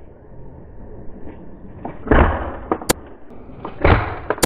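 Two heavy thuds about two seconds apart, each a shot from the Sabre M20S spring-powered foam dart sniper blaster with its 26 kg spring, and a sharp click shortly after each.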